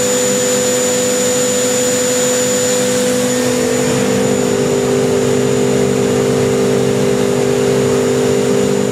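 2007 Haas VF-6/40 vertical machining center's 40-taper spindle running free at about 15,000 rpm under light load, giving a steady high whine over a hum.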